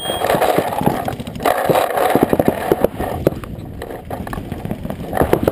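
Handling noise on a GoPro mounted to a paintball marker as the player moves up to a bunker: irregular knocks, scuffs and rattles over a steady rushing noise.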